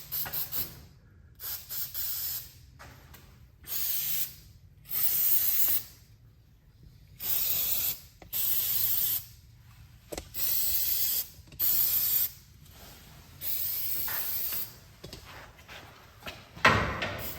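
Aerosol lubricant spray can hissing in about ten short bursts as it is sprayed onto garage door rollers and track to cure a squeak. A sharp knock near the end.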